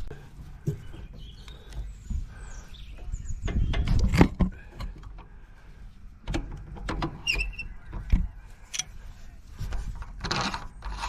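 Knocks, clicks and short squeaks from a pressure washer's water inlet filter housing and fittings being handled and worked open, with one louder bump about four seconds in. The filter is being checked for a blockage behind the machine's loss of pressure.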